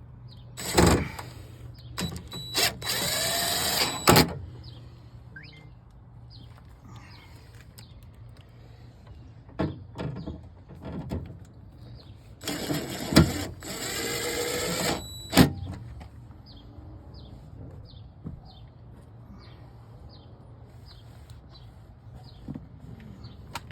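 Power drill driving in the screws that hold a new car door speaker. There are two runs, one of about a second and a half and one of about two and a half seconds, with the motor's pitch rising as it spins up. Scattered clicks and knocks come in between.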